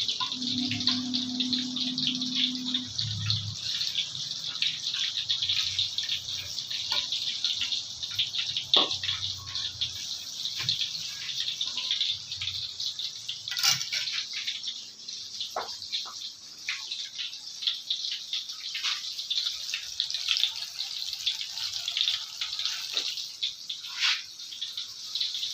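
Battered banana pieces deep-frying in hot oil, a steady dense crackling sizzle, with a few sharper clicks and pops scattered through it.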